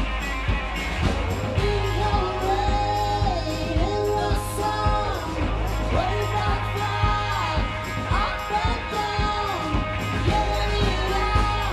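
Live rock band playing: a woman singing lead over electric guitar, a steady drum beat and bass.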